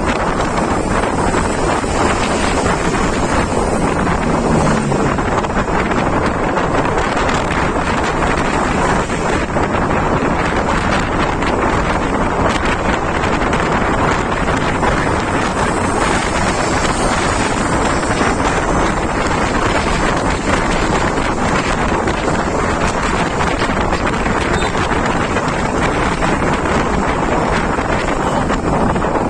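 Steady, loud wind noise rushing over the microphone, with no break or change.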